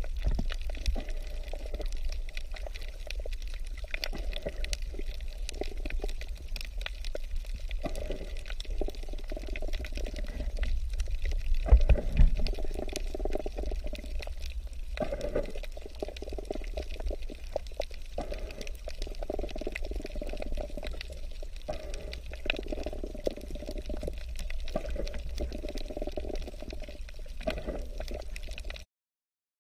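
Water sound heard underwater: a steady muffled wash with many small clicks and crackles, and a louder surge about twelve seconds in.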